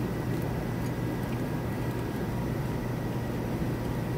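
Steady low machinery hum with a faint high whine: constant background noise from running equipment or ventilation, with no distinct events.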